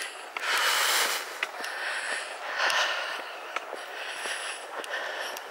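A person walking outdoors with a handheld camera, breathing audibly: two breathy hisses about two seconds apart, with scattered light clicks and crackles.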